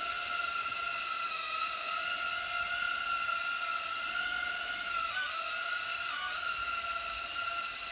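Small hand-controlled mini UFO drone hovering, its propeller motors giving a steady high-pitched whine. The pitch wavers briefly twice, about five and six seconds in.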